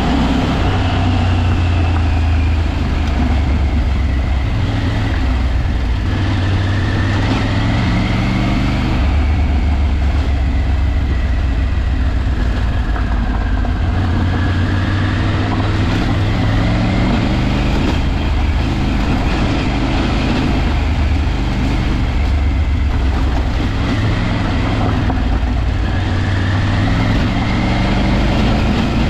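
Vehicle engine running on an off-road drive, its pitch rising and falling every few seconds as it speeds up and eases off, over a constant low drone.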